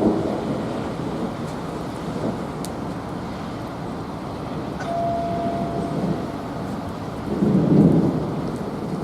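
Thunder rumbling from a lightning storm over a steady rushing background, with a louder swell of rumble near the end.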